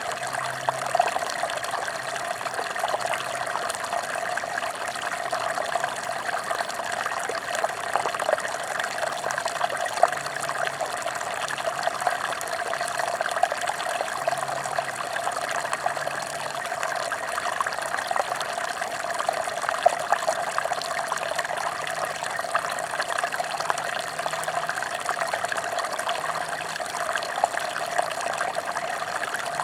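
Mountain stream running steadily: a constant, even wash of flowing water with small louder splashes here and there.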